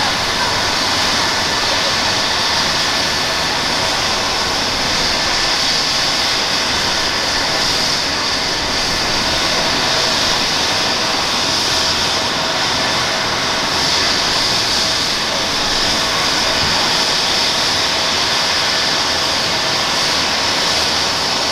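Police Eurocopter EC135 P2+ helicopter running on the ground, its twin Pratt & Whitney PW206B turboshaft engines giving a steady turbine whine over an even rushing noise.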